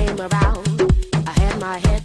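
Background dance music with a steady kick-drum beat of about three beats a second, a bass line and a melody on top.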